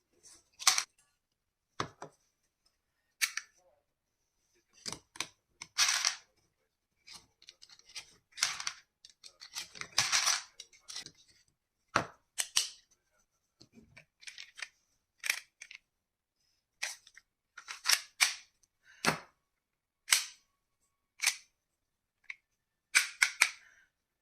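Plastic Springfield Armory Hellcat shell-ejection toy pistol being handled: irregular sharp clicks and clacks, a couple of them longer and rattling.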